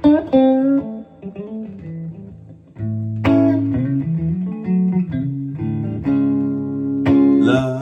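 Guitar playing between sung lines: plucked chords and single notes ringing out over low sustained notes, with a quieter stretch a second or so in before a strong chord about three seconds in.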